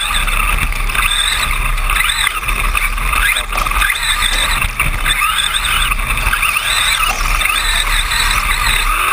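Electric motors and gear drives of radio-controlled short course trucks racing. High whines overlap and keep rising and falling in pitch with the throttle, over a steady low rumble.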